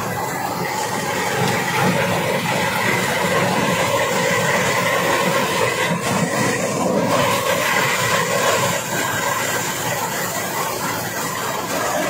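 Kubota DC-93 combine harvester running at close range while it cuts rice: its diesel engine and harvesting machinery make a loud, steady mechanical noise.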